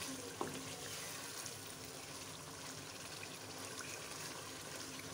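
Chicken karahi sizzling steadily in a wok as the masala is fried down (bhuna) with the softened chicken, stirred with a wooden spatula; a light knock of the spatula about half a second in.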